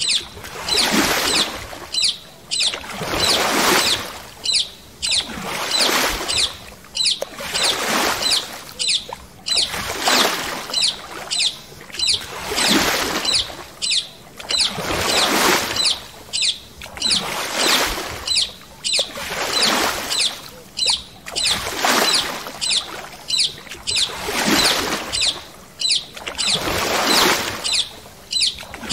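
Paddle strokes splashing in water in a steady rhythm, about one stroke a second.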